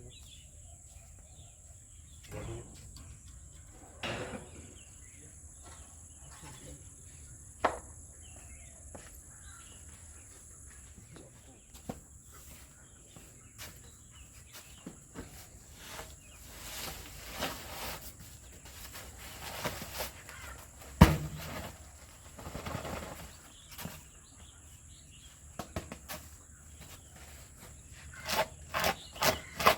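Steady high-pitched insect drone, with scattered knocks and thumps over it, the loudest about two-thirds of the way through, and a quick run of clicks and knocks near the end.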